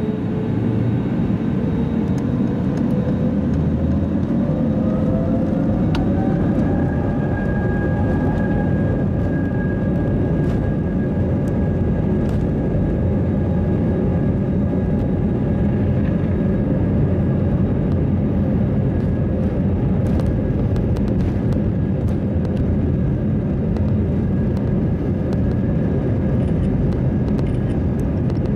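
Jet airliner's turbofan engines heard from inside the cabin, their whine rising over the first six seconds as thrust is added and then holding steady over a constant rumble as the aircraft rolls along the runway.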